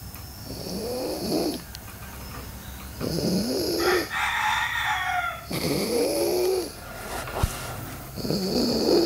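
Loud snoring from a sleeper, one rasping snore about every three seconds, four in all. Right after the second snore comes a high whistling squeak lasting about a second and a half.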